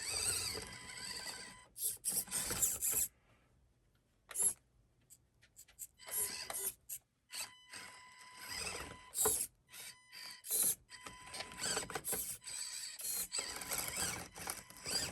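1/24-scale SCX24 micro RC crawler's small electric motor and gears whirring in short stop-start bursts as it crawls up an obstacle, with brief pauses between throttle pulls.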